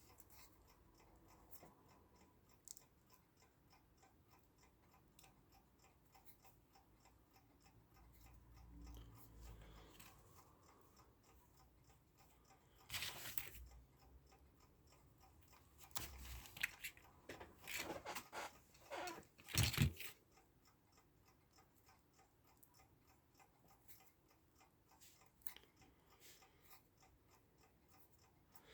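Wire cutters snipping and stripping the ends of the clock's electrical wires: a few short, sharp snips, one about a third of the way in and a cluster of several a few seconds later, with near quiet between.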